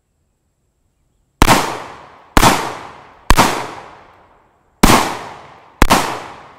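Five unsuppressed rifle shots from a Knight's Armament 10.5-inch short-barrelled AR rifle, fired at an uneven pace of about one a second, with a longer gap before the fourth. Each shot is a sharp crack followed by an echo fading over about a second.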